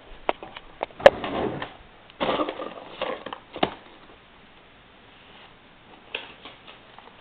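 Objects being handled close by: several sharp clicks and knocks, the loudest about a second in, with short bursts of rustling between them, then a quieter stretch.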